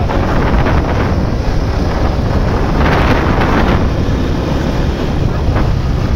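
Heavy wind buffeting the phone's microphone while riding on a moving motorcycle, a steady loud rumbling rush.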